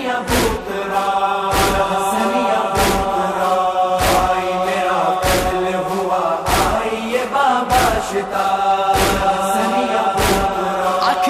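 Urdu noha, a Shia lament, chanted in long held lines, with a sharp beat about every 1.2 seconds like the chest-beating (matam) of the mourners.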